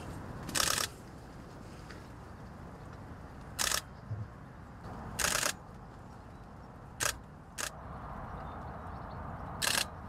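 Nikon DSLR shutter firing in short rapid bursts, about seven in all, each lasting well under half a second, over a steady low outdoor background.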